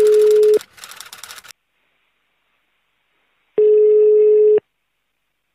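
Telephone ringback tone on a call: a steady low beep about a second long, heard as one ends just after the start and another comes about three and a half seconds in. It means the called number is ringing and nobody has answered yet. Crackling line noise runs under the first beep and stops after about a second and a half.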